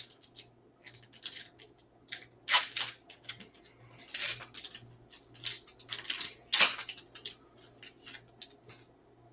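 Foil wrapper of a baseball card pack being torn open and crinkled by hand, in irregular sharp crackles and rips. The loudest tear comes about two-thirds of the way through.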